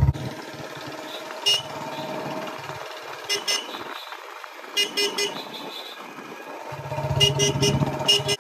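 Short vehicle-horn beeps sounding singly and in quick twos and threes, over a running motorcycle engine that comes up louder near the end.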